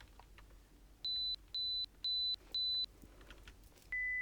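Pulsed pure-tone beeps from an audiometer during a hearing test: four short high beeps about half a second apart, then near the end a beep an octave lower begins as the test steps down in pitch.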